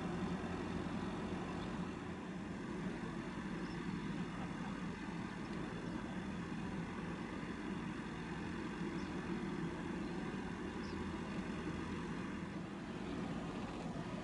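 A steady, low engine rumble with a constant hiss over it.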